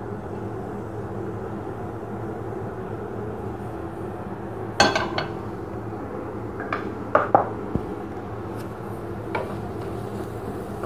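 Knocks and clinks of a plate and a spatula against a non-stick frying pan as chopped onions are tipped in and stirred, the loudest knock about five seconds in, over a steady low background hum.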